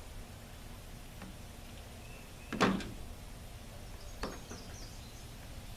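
Sharp plastic clicks as a new HVAC vacuum selector valve is pressed and seated onto a Ford F-series heater control head: a loud click with a quick second tap about two and a half seconds in, and a lighter click a little past four seconds.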